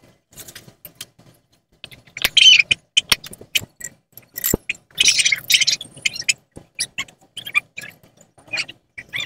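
Irregular metal clinks, knocks and short scraping rasps as small metal parts and exhaust pipe pieces are handled, with two louder, longer scrapes about two seconds and five seconds in.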